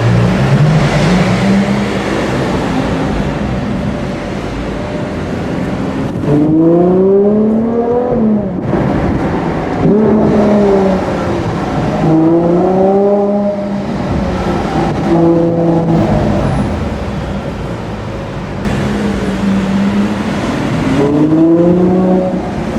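Ferrari 812 GTS's naturally aspirated V12 engine, running at low revs, then from about six seconds in pulling in a series of short bursts of acceleration, its pitch climbing and dropping back again each time.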